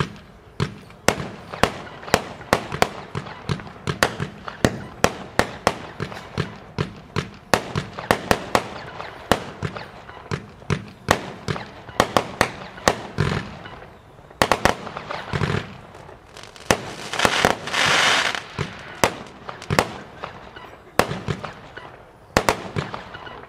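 Consumer fireworks battery firing: a rapid series of sharp bangs, about three a second, with a loud rushing burst lasting about a second and a half around seventeen seconds in.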